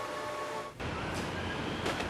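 Steady background noise with a faint high whine. Under a second in it cuts off and gives way to a fuller noise with a low rumble, and a single click sounds near the end.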